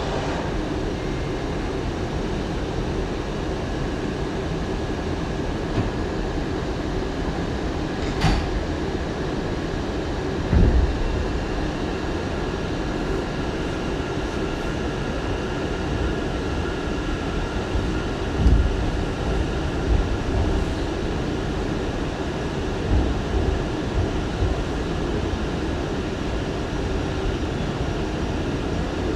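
R179 subway train with Bombardier MITRAC AC propulsion running along the track: a steady rumble of wheels on rail with a faint steady whine. A sharp click comes about 8 seconds in, and low thumps follow, the loudest a third of the way in and again past the middle.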